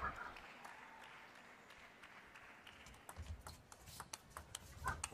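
Faint, sharp clicks of a table tennis ball striking rackets and the table as a rally gets going about three seconds in, after a near-quiet pause for the serve.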